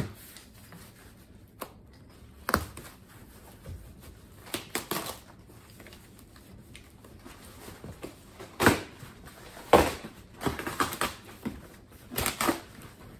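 Plastic packaging and cardboard rustling and crinkling in irregular bursts as a parcel is torn open by hand.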